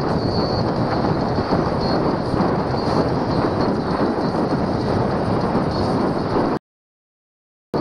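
Heavy wind buffeting on an action camera's microphone while riding a bicycle at about 25 mph, with road noise mixed in. The sound cuts out completely for about a second near the end.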